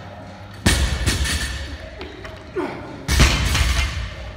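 Two heavy thuds from workout equipment, about two and a half seconds apart, each hitting hard and dying away with a low rumble.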